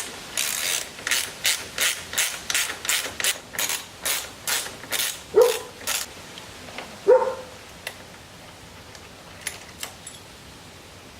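Socket ratchet wrench clicking in quick, even strokes, about three a second for some six seconds, as it undoes the motorcycle's tail light bolts. Then come two ringing metallic clinks and a few faint clicks.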